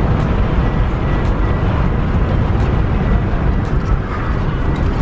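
Steady low rumble of car cabin noise, the vehicle's engine and running noise heard from inside the car.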